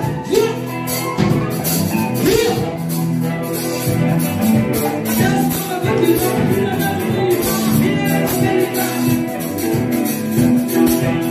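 Live band music: a woman singing into a microphone over keyboard, cajón and drum kit, with quick, steady percussion hits running through.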